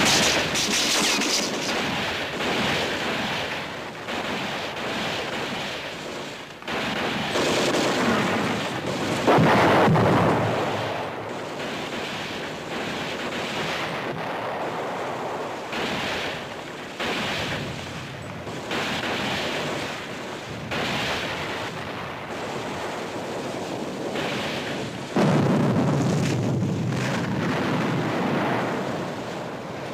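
Battle sound effects: artillery shells exploding, each blast rolling away like thunder, the loudest about nine seconds in and another big one near the end, with scattered rifle and machine-gun fire in between.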